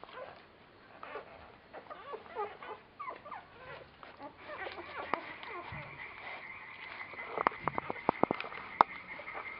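Newborn border collie puppies squeaking and grunting while nursing, many short squeaks that rise and fall in pitch. A run of sharp clicks near the end is the loudest sound.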